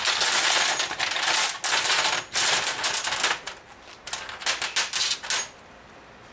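Steel bolts rattling and clattering onto a metal bench top in two long bursts, then several separate clinks as single bolts are set down.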